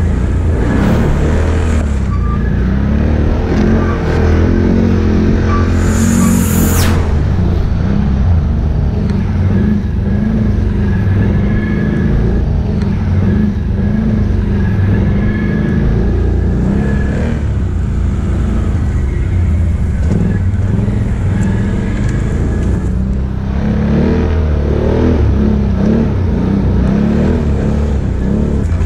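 Can-Am Outlander ATV's V-twin engine running as the quad is ridden, its pitch wavering up and down with the throttle. A brief hiss cuts across it about six seconds in.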